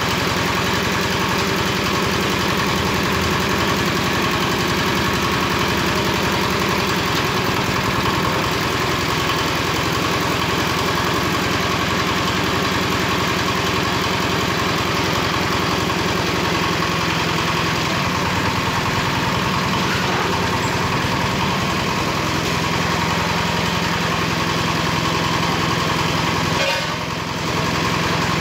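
Engine of a construction concrete-and-materials lift (hoist) running steadily, with a brief dip in level near the end.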